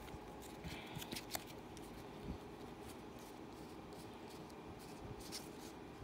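Yu-Gi-Oh trading cards rustling and clicking faintly against one another as they are fanned out in one hand, with a cluster of small snaps in the first second and a half and a few more near the end.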